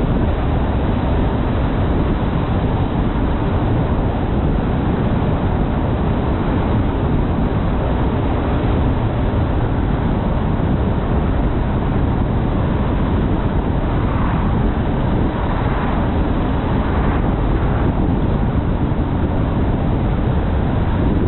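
A car being driven at road speed: a steady low rumble of tyres, engine and road noise.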